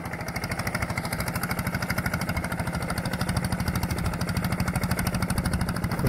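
Small engine of a boat-mounted lotus-tilling machine running steadily with a fast, even pulse as it churns through the lotus pond, getting slightly louder.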